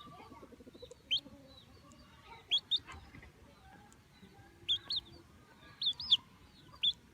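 Baby chicks peeping: short, high chirps, several in quick pairs, over fainter peeping in the background.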